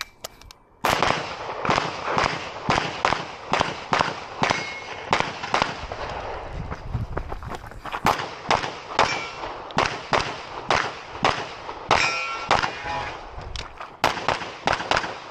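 Compensated 9mm open-division race pistol (Masterpiece Arms DS9) firing a long, fast string of shots, starting about a second in, often in quick pairs. A few times steel targets ring after being hit.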